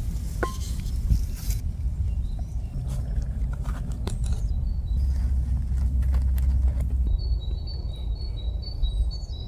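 Woodland ambience: a steady low rumble with a few scattered clicks, and a high, rapidly repeated chirping call starting about two seconds before the end.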